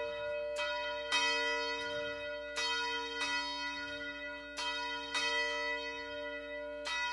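A church bell tolling, struck about seven times at uneven intervals, mostly in pairs, with each strike ringing on into the next.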